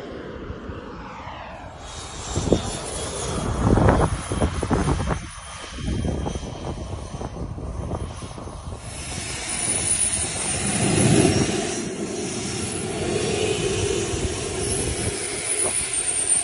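Miniature kerosene-burning turbine engines of radio-controlled model jets. A model jet passes with a loud rush a few seconds in, its pitch falling as it goes by. Later a turbine runs steadily with a high whine.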